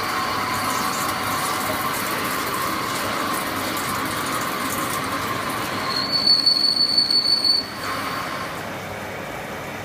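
CNC lathe turning metal: steady machine running with a high-pitched squeal from the cut, loudest for a second and a half about six seconds in.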